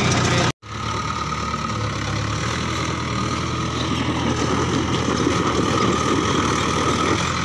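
Tractor diesel engine running steadily, with a brief drop-out about half a second in.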